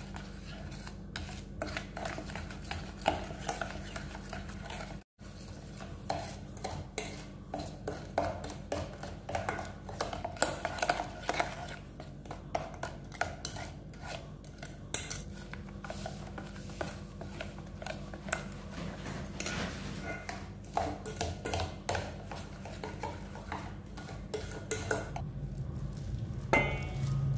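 Metal spoon stirring and scraping around a stainless steel bowl, mixing a thick, wet sauce-and-spice marinade, with frequent clinks of the spoon against the bowl. The sound drops out for an instant about five seconds in.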